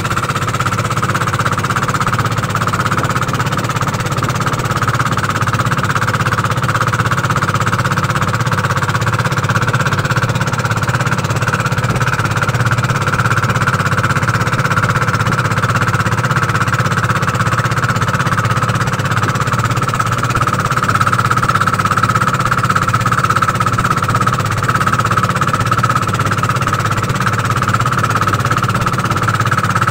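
Engine of a motorized outrigger boat running steadily under way, a low drone with a steady high whine over it.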